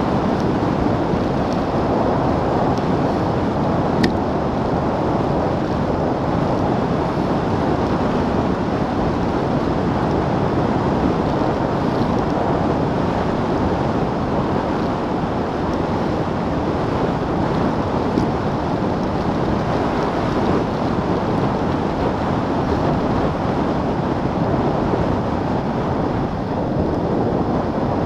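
Steady wind rushing over the Garmin VIRB action camera's microphone as a road bike descends at about 34 mph. A brief click about four seconds in.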